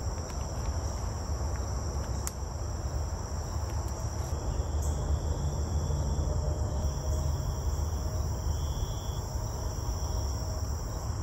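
Steady chorus of insects trilling high in the summer woods, over a constant low rumble.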